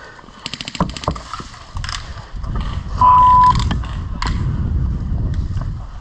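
A single flat, pure beep of about half a second, about three seconds in and louder than everything else, like an edited-in censor bleep. Around it there is a quick run of sharp clicks about half a second in and a low rumble on the microphone from about two seconds on.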